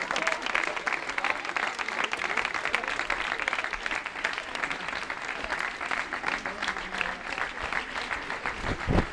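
A crowd of people clapping in sustained applause, with a low thump near the end.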